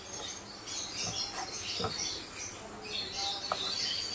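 Spatula stirring chopped vegetables and chicken in a pan, with a few soft scrapes and taps, while birds chirp in the background.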